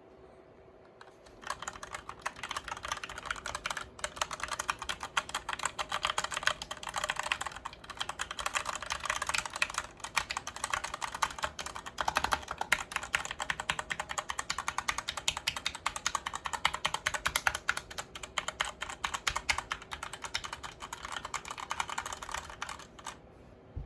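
SteelSeries Apex 7 TKL mechanical keyboard being typed on quickly and continuously, a dense rapid clatter of key switches. The typing starts about a second in and stops shortly before the end.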